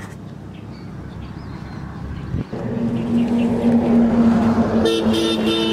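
A motor starts running steadily about two and a half seconds in, holding one low even tone. Near the end a horn beeps three times in quick succession.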